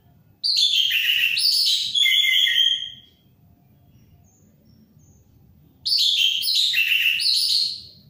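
Orange-headed thrush singing: two loud phrases of rapid, varied notes, each two to three seconds long, with a pause of about three seconds between them.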